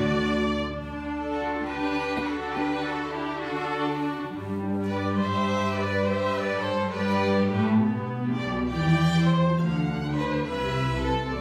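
Live string orchestra playing, violins over low strings holding long low notes, the chords changing every few seconds.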